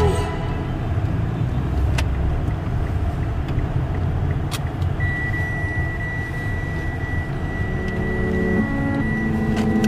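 Steady low rumble of a running vehicle, with two sharp clicks and a steady high-pitched tone in the second half.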